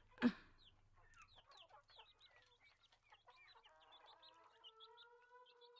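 Faint chirping and clucking of birds, with one brief louder call just after the start. About four seconds in, a soft held musical chord of steady notes comes in and carries on.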